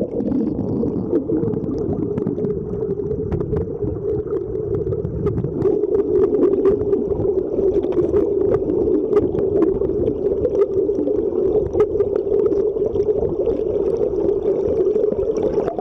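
Muffled underwater sound of a river current, a steady low rush with scattered clicks and knocks of rocks being shifted by hand to free a coin.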